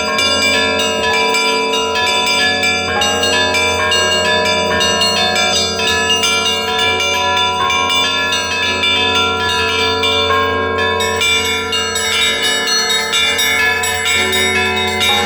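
Russian church bells ringing together: many quick strokes on the smaller bells over the long, steady hum of larger, deeper bells, continuing without a break.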